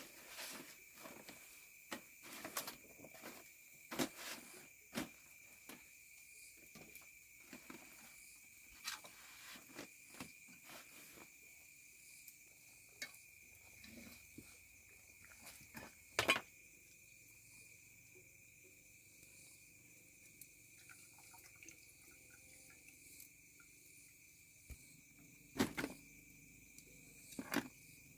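Steady high-pitched insect chirring, with scattered knocks and clatters from handling things; the loudest knock comes about sixteen seconds in, and two more sharp ones come near the end.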